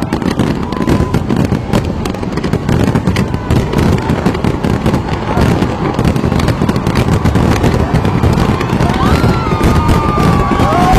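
Fireworks going off in a dense, continuous crackle of many rapid pops.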